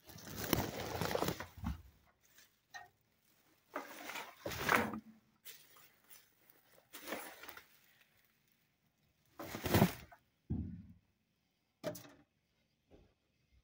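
Plastic trash bags rustling and cardboard boxes being shifted by hand while rummaging through dumpster contents, in several separate bursts with short quiet gaps between.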